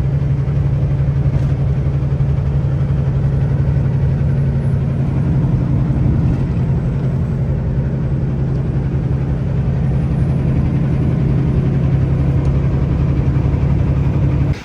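Semi truck's diesel engine running steadily at cruise with tyre and road noise, heard inside the cab: a constant low hum.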